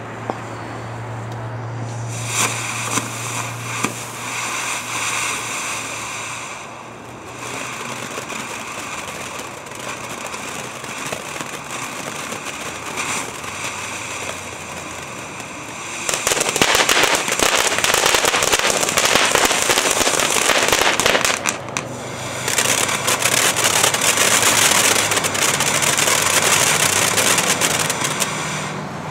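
Phantom Fireworks 'Brew Ha Ha' fountain firework burning: a hissing spray of sparks starts about two seconds in. About halfway through it becomes much louder and denser, with crackling, drops out briefly, then runs loud again until near the end.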